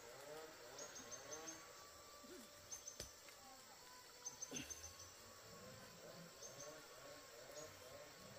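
Faint insects chirping in short repeated trills, with a single sharp click about three seconds in and a soft knock midway.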